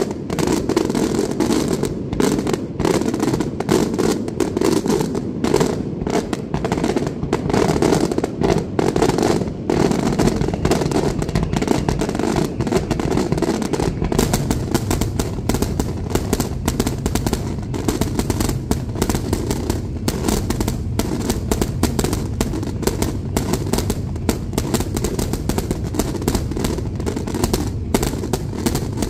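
Daylight fireworks going off in a rapid, unbroken barrage: a dense run of sharp bangs and crackling, many per second, fired in quick succession.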